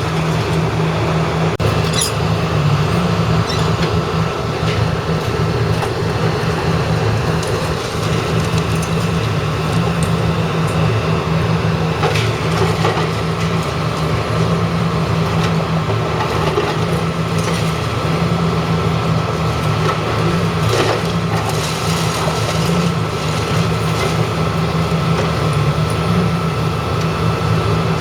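A heavy engine drones steadily, with a few scattered knocks and clatters.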